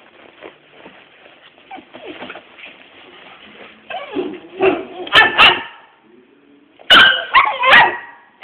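A little dog and a big dog play-fighting: barks, yips and whimpers, in two loud bouts about four and seven seconds in.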